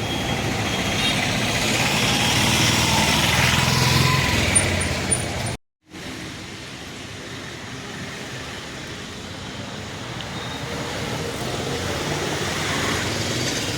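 Steady engine and motor noise, loud for the first few seconds. After a brief cut about six seconds in, a quieter stretch of the same kind of noise slowly grows louder.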